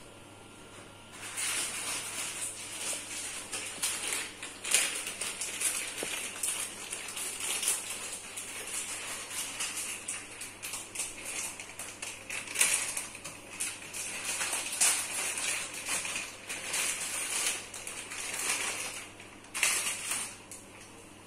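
Water with a little cooking oil heating in an aluminium wok over a gas burner, crackling with many small pops as it comes toward the boil. It starts suddenly about a second in and cuts off about a second before the end.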